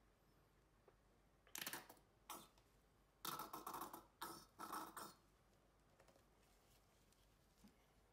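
Faint handling noise: several short bursts of rustling and clicking from gloved hands working the paint cups, the first about a second and a half in and a cluster between three and five seconds in.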